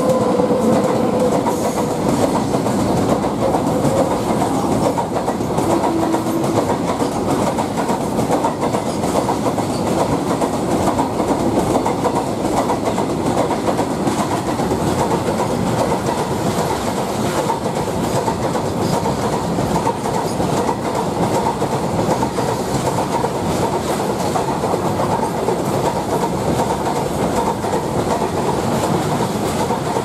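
Freight train of BCNA covered wagons behind a WAG9 electric locomotive passing close by at speed. The wagon wheels make a steady, loud rumble and clickety-clack over the rail joints.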